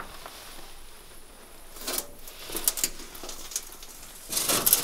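Shoes scuffing and scraping on a gritty concrete floor and loose rusted metal floor plates, with a few light taps, and a louder rough scrape near the end.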